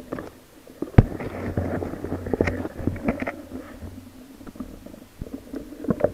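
Muffled underwater rumble of churning surf water, with sharp knocks and clicks scattered through it, the loudest about a second in.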